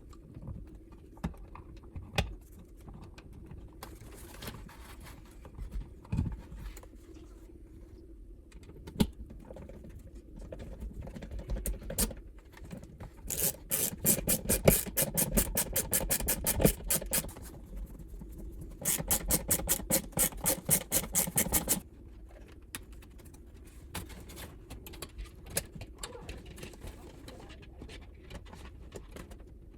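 Hands working with small tools and hardware, with scattered taps and clicks. Twice there is a run of rapid, evenly spaced clicking lasting about three seconds each, the second ending about two-thirds of the way through.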